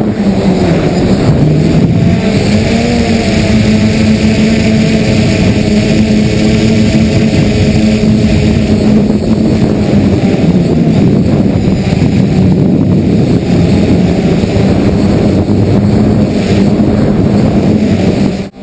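DJI F550 hexacopter's brushless motors and propellers humming steadily in flight, heard close up from a camera on the frame with wind noise. The pitch of the hum dips and rises slightly as the throttle changes.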